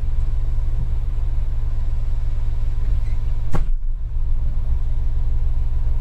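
Asa Kaigan Railway dual-mode vehicle's engine running steadily with a low rumble, with a single sharp knock about three and a half seconds in.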